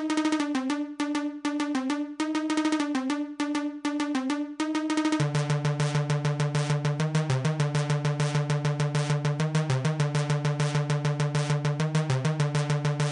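Electronic background music: choppy synthesizer notes, then about five seconds in a low bass line comes in under a fast, even pulse.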